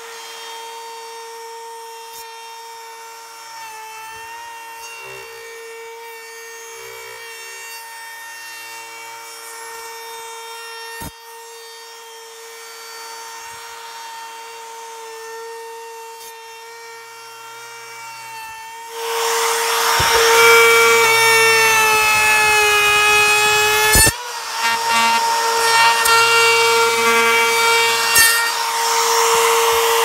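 Handheld router running with a steady high whine. From about two-thirds of the way through it gets much louder, with a rough cutting noise and a slight sag in pitch, as the bit cuts a rabbet into the ends of pine boards. There are a couple of sharp knocks near the end.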